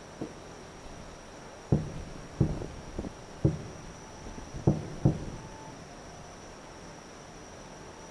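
Distant aerial firework shells bursting: a string of dull booms, several in quick succession about two to five seconds in, and one more at the very end.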